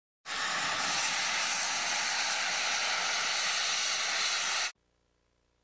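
Strasburg Rail Road No. 475, a 4-8-0 steam locomotive, venting steam from its cylinder cocks with a loud, steady hiss that starts suddenly and cuts off sharply after about four and a half seconds.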